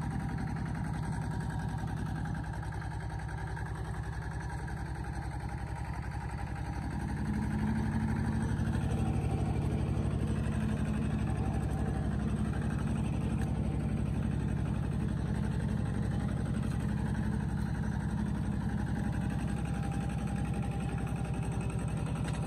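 An engine running steadily with an even low hum, growing louder about seven seconds in and then holding.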